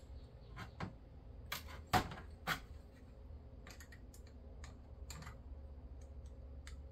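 Scattered light clicks and taps of a screwdriver tip against an aluminium transmission-cooler thermostat housing as the ball and valve are pressed down into its bore, the sharpest tap about two seconds in.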